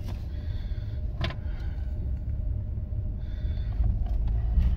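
Road and engine noise heard inside a moving car's cabin: a steady low rumble, with a single faint click about a second in.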